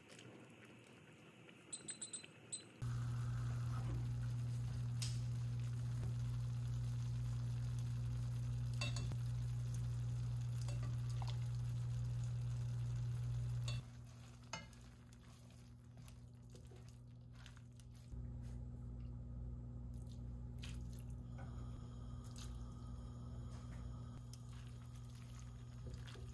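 Steady electrical hum from a kitchen appliance, starting about three seconds in after a few short high ticks. It drops in level about halfway through and steps back up later, with scattered light kitchen clicks.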